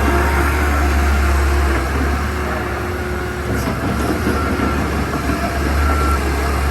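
Komatsu PC120-8 hydraulic excavator's diesel engine running, a steady low drone with a faint high whine coming and going in the second half.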